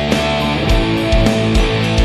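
Background rock music: distorted electric guitar chords over a steady drum beat.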